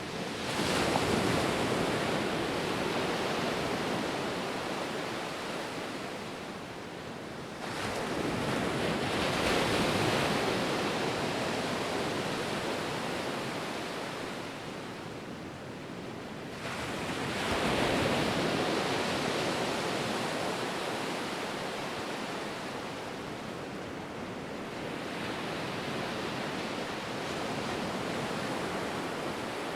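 Ocean surf: waves breaking and washing back in a steady rush of noise. Three big surges arrive near the start, about 8 seconds in and about 17 seconds in, each fading over several seconds, and a softer one follows near the end.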